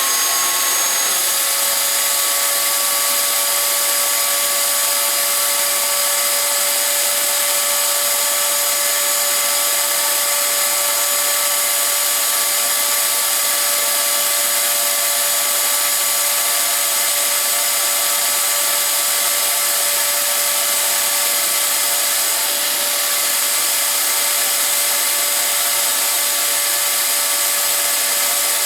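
Ryobi shop vacuum running steadily at full speed as it supplies suction to a Festool vacuum clamp, a constant high whine over a rushing hiss. Its motor is just finishing spinning up, the pitch settling within the first half second.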